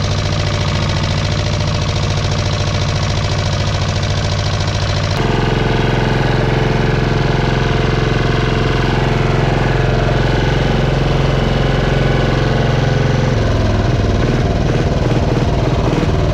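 Small tractor's engine running steadily while driving. Its note changes abruptly about five seconds in, and near the end it drops to a lower, uneven pulsing like an idle as the tractor slows.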